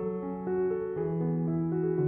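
Background piano music: a chord struck right at the start, then sustained notes changing about every half second.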